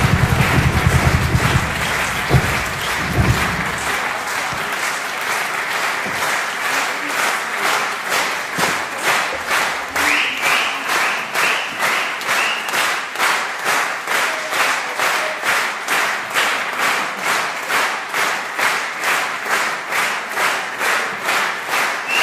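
Audience applauding, the clapping settling into a steady rhythm of about two claps a second, with a few shouts from the crowd.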